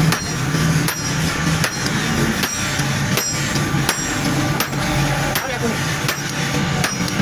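Hammer blows on steel rebar being forged, struck at a steady pace of roughly one ringing strike every three-quarters of a second.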